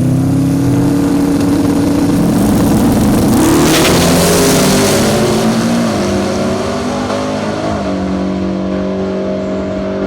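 Drag-racing truck engine running loudly as it passes, its note swelling to a peak about four seconds in, then settling lower and stepping down in pitch twice.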